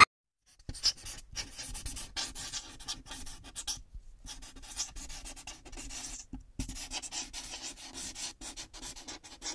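Irregular scratching and rubbing noise, like something dragged or rubbed against a surface, broken by a few short pauses.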